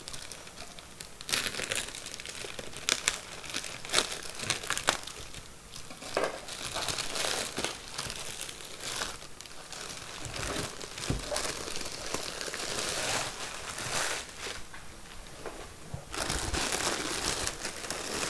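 Clear plastic bag and thin foam packing wrap crinkling and rustling in irregular bursts as hands pull them off.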